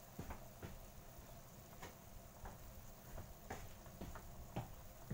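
Braised pork belly sauce simmering in a wok, with faint, irregularly spaced pops of bubbles breaking, about ten in all.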